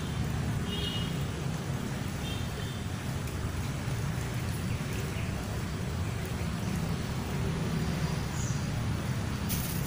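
Steady low rushing of muddy, rain-swollen stream water pouring out of a small concrete sluice. A few short high chirps come in the first few seconds.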